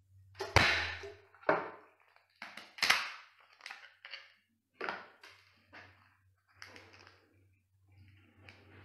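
Shell of a cooked crab being cracked and broken apart by hand: a string of sharp cracks and crunches, the loudest about half a second in and again near three seconds, then smaller cracks spaced out toward the end.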